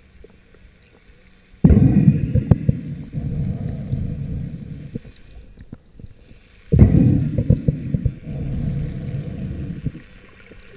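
Water noise against a camera held just below the sea surface, in two spells that each start suddenly and fade over about three seconds.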